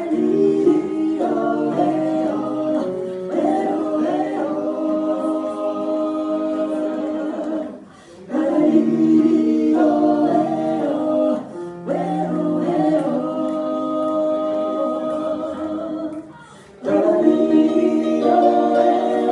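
A group of voices singing together in harmony, holding long chords. The singing falls into three phrases, with brief breaks about eight and sixteen seconds in.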